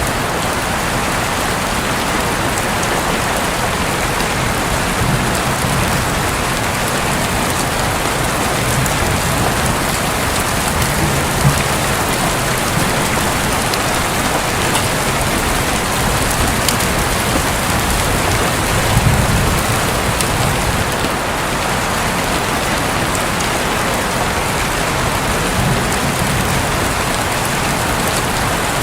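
Steady heavy rain falling on a roof, with a few soft low rumbles of distant thunder underneath.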